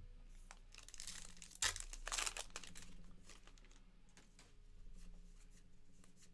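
Faint tearing and crinkling of a 2023 Topps Heritage baseball card pack wrapper being ripped open, loudest between about one and two and a half seconds in. Lighter rustling of the cards being handled follows.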